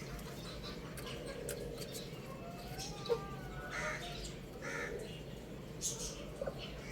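Young rooster chirping in short, scattered calls over steady background noise, with two harsher calls in the middle.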